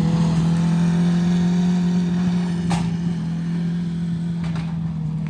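600 micro sprint race car's engine running at a steady pitch, growing slightly fainter, with a single sharp click a little past the middle.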